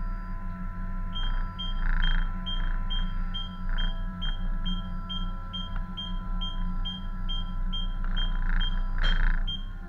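A tugboat's machinery running with a steady low rumble and a hum of several even tones, while a short high electronic beep repeats about twice a second from about a second in. Brief rushes of wave and wind noise come and go over it, the strongest near the end.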